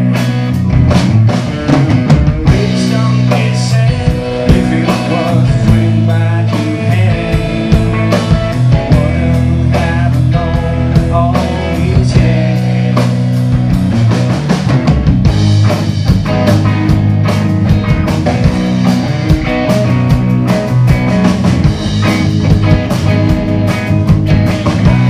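Live rock band playing loud, with electric guitar to the fore over drums and a man singing.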